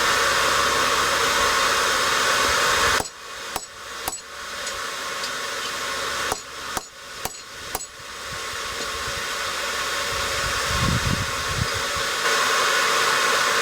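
Steady roar of a forge blower, which drops away about three seconds in. Then come about seven sharp hammer strikes on hot steel, cutting a twisted bar off the stock. The blower noise builds back up near the end.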